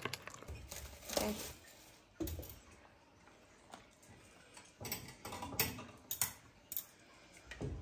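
Light kitchen clicks and taps: a wooden spoon working marinated chicken in a glass bowl, then four or five sharp clicks about half a second apart around the wok on the gas stove.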